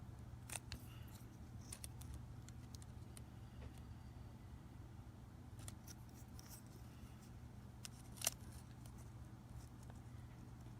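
Faint scattered clicks and taps of small hard parts being handled and measured, with one sharper click about eight seconds in, over a steady low hum.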